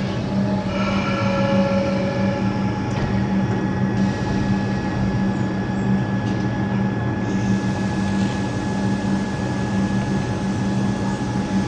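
Electric suburban train standing at a platform, its onboard equipment giving a steady hum with a couple of thin, high whining tones over it.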